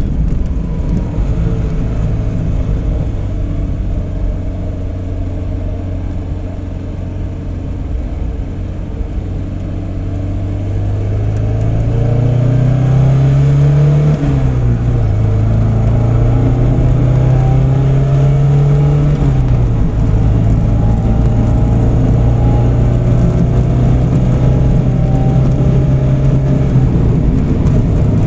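1978 Alfa Romeo Spider 2000's twin-cam four-cylinder engine heard from inside the cabin on a drive. It runs steadily at first. About eleven seconds in it revs up through a gear, drops with a shift, climbs again and drops with a second upshift, then holds a steady cruise.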